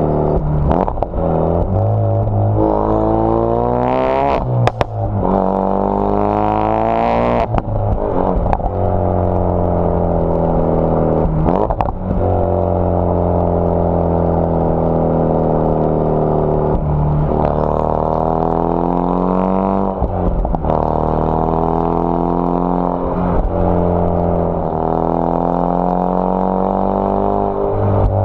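Ford Focus RS Mk3's turbocharged 2.3-litre four-cylinder through a Scorpion cat-back exhaust, pulling hard through the gears. The note rises in pitch on each pull with a sharp break at every gear change, and sinks slowly between pulls as the car slows.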